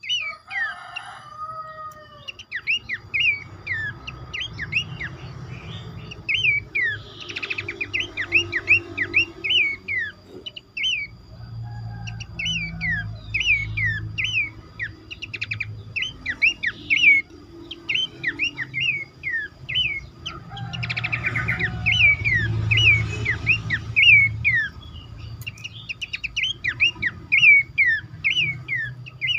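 Pelanduk semak babbler calling: a long run of short, sharp, falling chirps, about two a second, with a few brief pauses.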